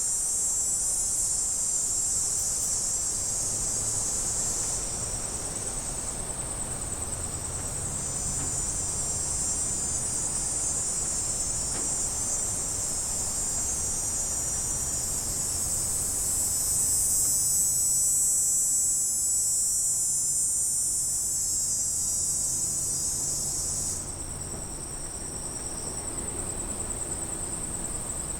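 Cicadas buzzing in a continuous high-pitched drone that swells and eases in waves. Near the end it drops abruptly to a quieter, thinner buzz.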